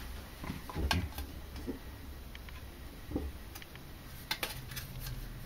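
A few light clicks and knocks from a homemade metal body stand for 1:10 RC cars, square tube, rods and wheels, being picked up and handled: a small cluster about a second in, one near three seconds and two more around four and a half seconds.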